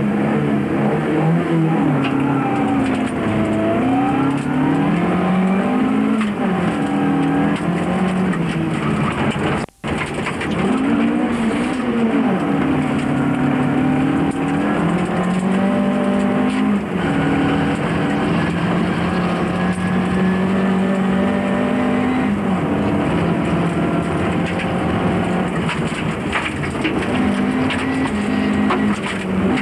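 Rally car engine heard from inside the cabin at stage pace on a gravel road, its pitch climbing and dropping again and again with each gear change and lift. The engine runs over the rumble of tyres on gravel, and the sound cuts out for a split second about a third of the way in.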